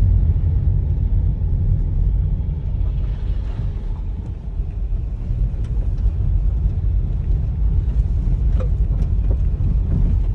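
Steady low rumble of a Toyota car's engine and tyre noise heard from inside the cabin while driving on a snow- and slush-covered road.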